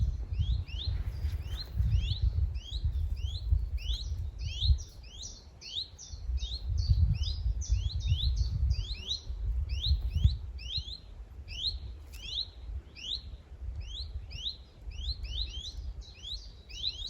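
Two chiffchaffs calling incessantly, a run of short, piercing rising calls about three a second that overlap one another: the parents' frantic alarm over fledglings just out of the nest. A low rumble sits underneath.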